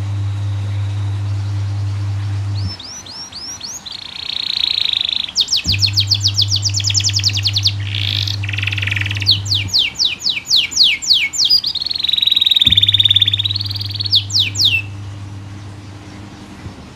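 Domestic canary singing a fast, continuous song of rapid trills, rolls and quick rising and falling sweeps, starting about three seconds in and stopping near the end. Under it a low steady hum switches on and off abruptly three times, and it is the loudest sound at the start.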